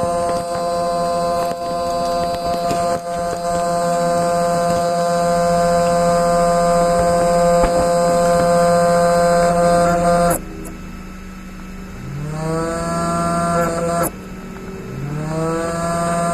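Steady electrical hum with a whine of many overtones from a headlight with a fault noise. It cuts out abruptly about ten seconds in, then comes back twice, each time rising briefly in pitch before holding steady.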